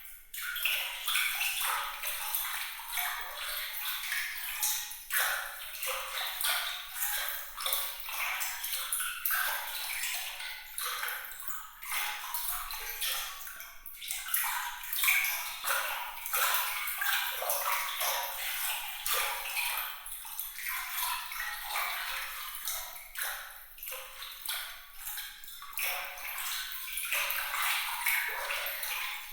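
Bright, sparkling water sound: a continuous trickle of small splashes, drips and plinks, all light and high with no deep sound beneath.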